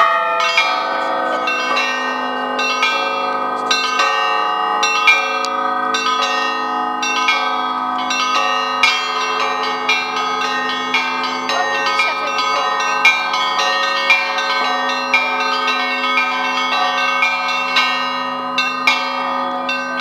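Russian Orthodox-style church bell ringing: a frame of many bells of different sizes rung by hand in a rapid, joyful peal. The small bells are struck several times a second over the long, steady ringing of the large bells.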